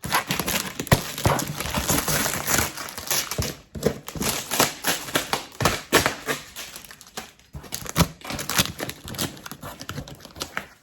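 A custom box being handled and worked open: irregular knocks and clicks with rustling and crinkling, broken by two short pauses.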